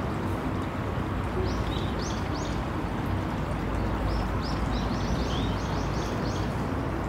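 A small songbird chirping a quick series of short, high notes, a brief group of about three and then a longer run of about eight, over steady low background noise.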